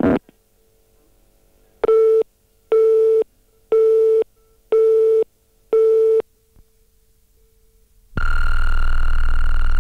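Telephone busy tone on an answering-machine tape after the caller hangs up: five short beeps about once a second. Near the end, a louder, buzzy beep lasts nearly two seconds, the machine marking the next message.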